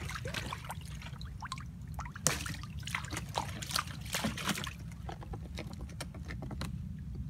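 Water sloshing and trickling in irregular small splashes, over a steady low rumble.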